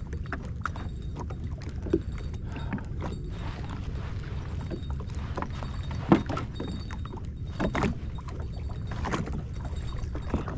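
Small waves lapping and slapping against the hull of a drifting jet ski over a steady low rumble, with a few short sharp knocks, the loudest about six seconds in.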